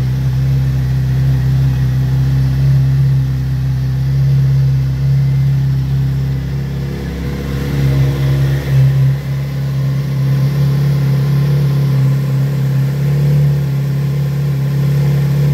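Kawasaki Z900RS inline-four engine idling steadily just after a cold start, its crankcase freshly filled with 10W-40 oil that is still being pumped through the engine.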